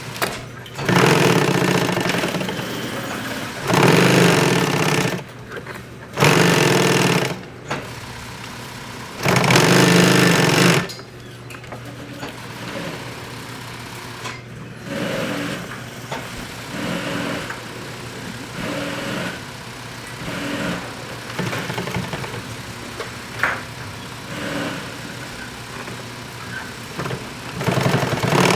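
Sewing machine stitching in bursts, sewing a pistol magazine pouch. Four long runs of a second or two come in the first eleven seconds, then a string of shorter, quieter bursts, over a steady low hum.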